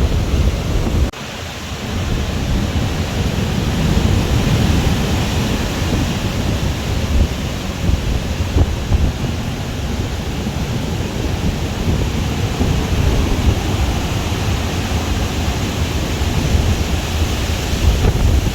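Strong wind buffeting the microphone: a loud, steady low rumble with a hiss over it. It drops off sharply about a second in, then builds back up.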